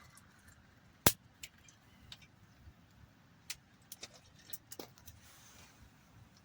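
Firewood snapping and popping: one loud sharp crack about a second in, then scattered smaller clicks and pops.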